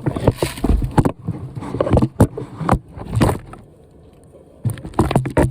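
A series of irregular scrapes and knocks, with a short lull about two-thirds of the way through.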